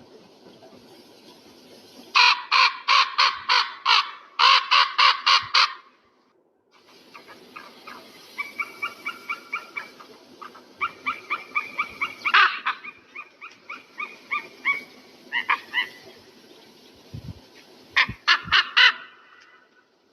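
Large bird calling: two loud runs of rapid, harsh calls, about six a second, then a softer, quicker chattering series and another short burst of calls near the end.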